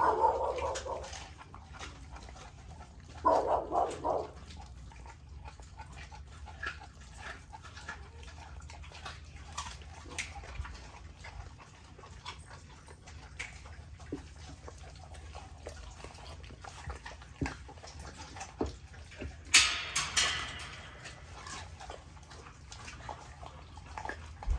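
XL pit bulls chewing raw chicken leg quarters, with scattered small crunches and clicks. Brief dog vocalisations come right at the start and again about three seconds in, and a louder sharp sound comes about twenty seconds in.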